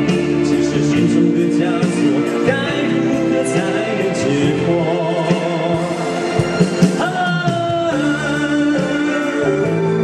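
Live Mandarin pop song: singing into a microphone over electric keyboard and guitar accompaniment.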